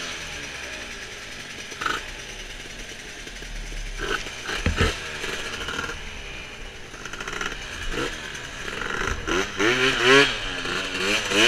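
Racing scooter engines running and revving, their pitch swinging up and down, loudest near the end. There is a single sharp knock about five seconds in.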